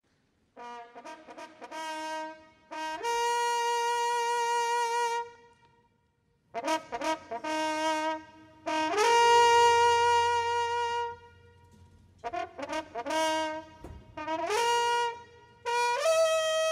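Brass band of trumpets, trombones and tubas playing a fanfare-like opening: three phrases, each a quick run of short rising notes leading into a long held chord, with short pauses between them; the third chord is held on a higher note.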